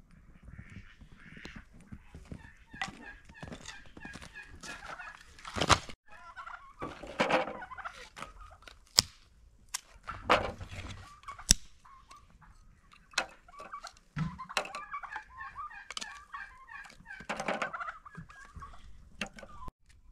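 Farmyard poultry calling in repeated rapid warbling runs, with several sharp knocks of firewood being dropped and split with a blade.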